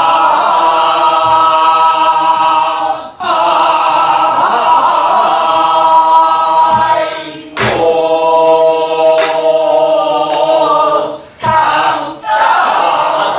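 Korean Namdo folk song sung in the southern style, in long held notes broken by short breaths about every four seconds. A few sharp strokes on a barrel drum (buk) sound under the singing.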